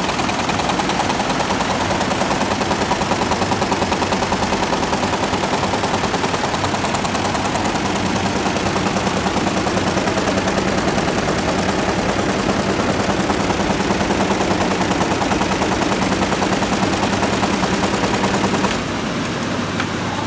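Computerized embroidery machine stitching at speed: a fast, even mechanical clatter of the needle heads. It drops in level suddenly near the end.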